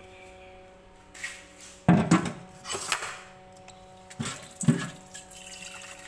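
Several sudden knocks and rubbing noises from the phone being handled close to the microphone, the loudest about two seconds in and again a little after four seconds, over a faint steady hum.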